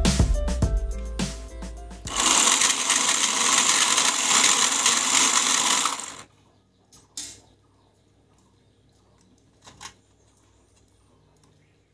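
Music fading out, then a small DC motor with a gear drive running with a steady whir for about four seconds before it cuts off suddenly. After it, a couple of faint handling clicks.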